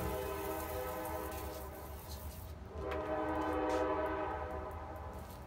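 A horn sounding two long, steady blasts, a chord of several tones held together, the second blast a little louder.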